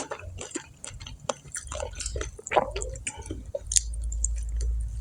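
Close-up chewing and mouth noises of a person eating crispy fried food, with many small wet clicks and crunches. A low rumble comes in and holds through the second half.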